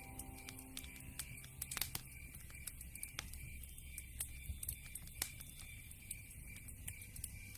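Wood fire crackling: irregular sharp pops and snaps, with a couple of louder ones, over the low steady rumble of burning logs.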